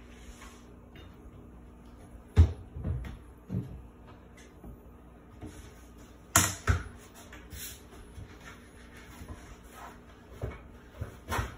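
Scattered knocks and clunks of things being handled in a kitchen, about eight separate hits, the loudest about two and a half seconds in and again around six and a half seconds in, over a faint steady hum.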